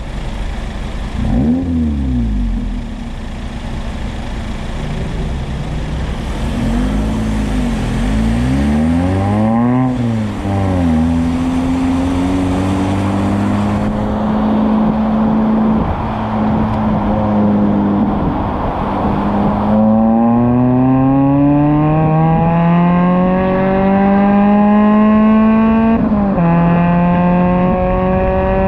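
Suzuki Ignis Sport HT81S's 1.5-litre four-cylinder engine through a stainless steel 2.5-inch cat-back exhaust, heard from outside the moving car. The revs rise and fall a few times in the first ten seconds. Then the engine pulls with a steadily climbing note, dropping and climbing again at upshifts about twenty and twenty-six seconds in.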